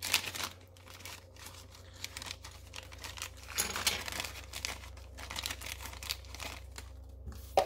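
Thin clear plastic bag crinkling and tearing as it is pulled open by hand, in irregular bursts with a louder spell about three and a half seconds in and a sharp click near the end.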